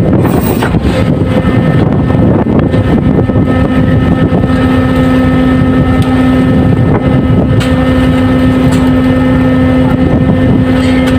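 Fishing boat engines and winch running loud and steady, with wind on the microphone; a steady hum comes in about three seconds in.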